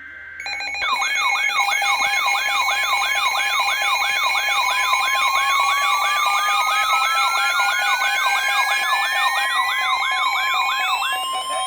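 Loud electronic siren tones starting about half a second in: a fast repeating downward sweep, about two and a half times a second, over steady tones, joined about halfway through by a slow rising wail.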